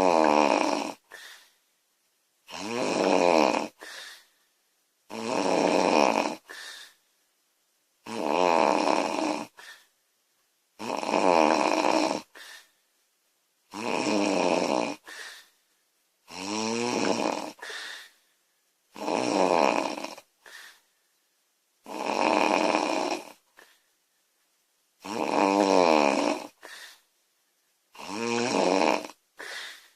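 A woman snoring loudly and regularly. About one long, pitched snore every three seconds, each followed by a short, fainter breath out.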